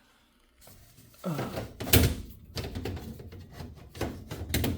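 Metal air filter being slid into a furnace's filter slot: scraping with a series of irregular knocks and rattles of metal against the furnace housing, the loudest knock about two seconds in.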